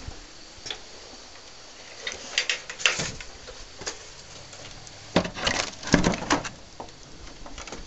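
Footsteps and knocks on old wooden boards and debris: scattered short knocks in two clusters, about two to three seconds in and again, louder, about five to six seconds in.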